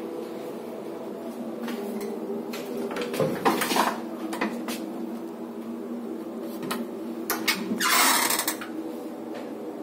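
A wooden wardrobe door being handled: scattered knocks and clicks, a cluster of them about three and a half seconds in, and a short scraping slide about eight seconds in, over a steady low hum.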